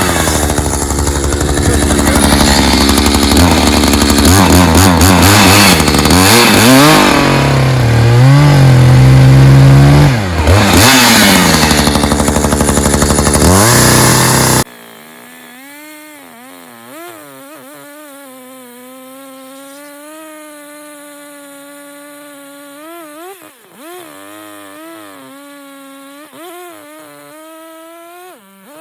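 Gasoline chainsaw running loud, its engine note rising and falling as it revs and works through wood. About halfway in the sound cuts off suddenly to a much fainter, steady engine drone whose pitch wavers slowly.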